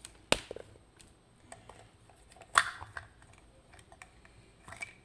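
Hard clicks and light knocks from an Abloy Profile disk-detainer lock and metal tools being handled. There are two sharp clicks, one just after the start and one about halfway, each followed by a few smaller ticks, and a few more soft ticks near the end.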